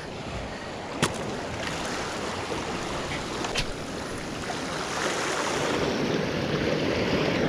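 Small waves washing against shore rocks, a steady surf hiss that swells slightly toward the end, with two faint clicks about one and three and a half seconds in.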